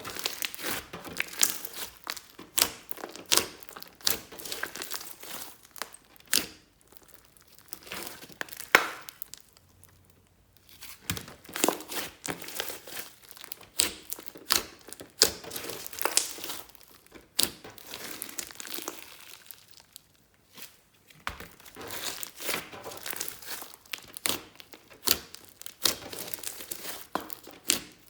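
Hands squishing, stretching and folding glossy slime: irregular sticky clicks, pops and crackles, with a few short pauses.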